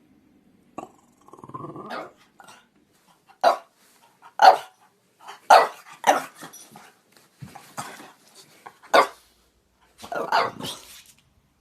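French bulldog barking: about ten short, sharp barks at uneven intervals, the loudest about four and a half seconds in, with a longer, rougher bark near the end.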